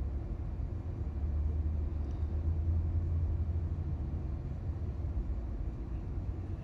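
Steady low rumble with no clear source, swelling slightly for a couple of seconds about a second in.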